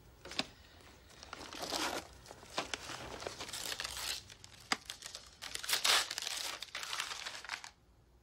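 Brown paper gift wrapping being torn open and crumpled by hand, in several bursts of rustling with sharp crinkles, the loudest about six seconds in.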